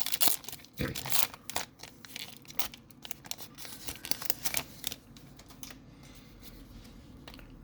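Foil Pokémon booster pack wrapper being torn open and crinkled, with a run of sharp rustling tears over the first few seconds that gives way to quieter handling near the end.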